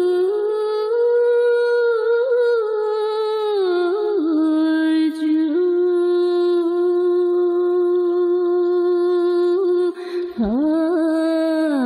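Slow background music of long held notes that glide gently from one pitch to the next.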